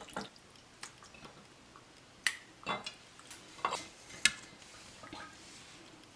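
Kitchen utensils and containers clinking and knocking against a pot or bowl as ingredients are added. There are several separate clinks, the loudest about two seconds and about four seconds in.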